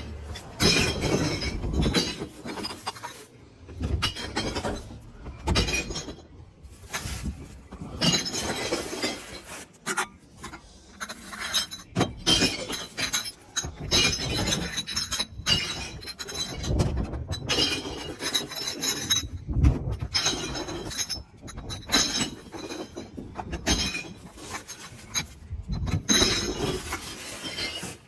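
Small empty glass beer bottles dropped one after another into a bell-shaped street glass-recycling bin, each landing with a clinking crash of glass on glass inside, about one every second or two.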